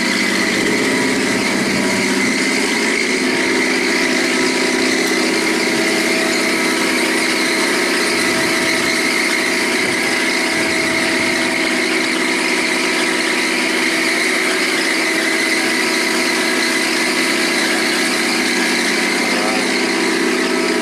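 Boat lift's engine running steadily, with a constant high whine over the engine note.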